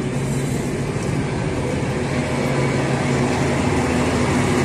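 Passenger train's diesel engine idling with a steady low hum, growing slightly louder near the end.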